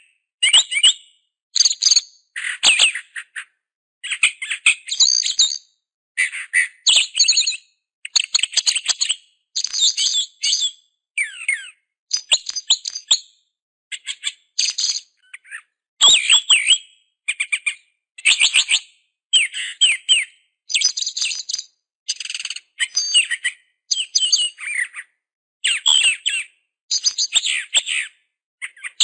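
A small songbird chirping and twittering in quick high bursts, roughly one a second, each broken off by a short silent gap.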